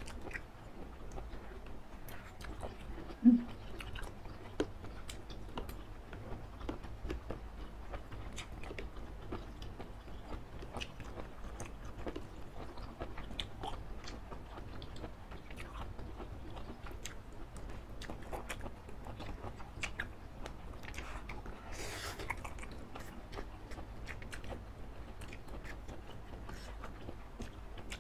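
Close-miked eating of soupy noodles and baby octopus: chewing, mouth smacks and small clicks throughout. A short loud low sound comes about three seconds in, and a longer hissing sound about three-quarters of the way through.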